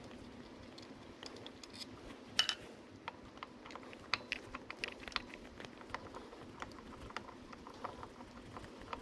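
Small metal parts and hand tools clicking and clinking, scattered irregular taps during disassembly of a scooter gearbox, with one sharper clink about two and a half seconds in, over a steady low background noise.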